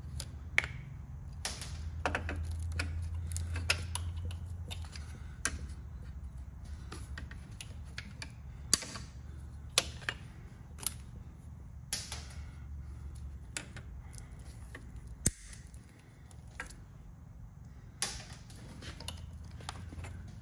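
Plastic zip ties being snipped off a motorcycle's wiring harness with diagonal cutters. Each cut is a single sharp snap, coming irregularly about every one to two seconds.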